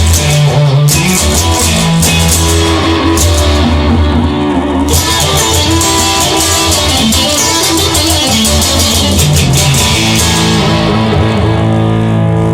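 Instrumental rock music: a guitar-led section with bass and drums, without vocals.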